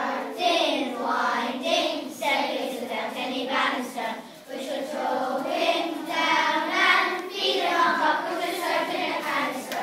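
A class of young children singing together as a choir.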